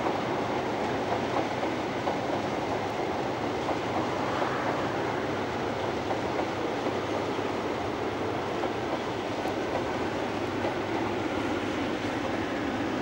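InterCity 125 high-speed diesel train passing at speed: a steady rumble of its coaches' wheels on the rails.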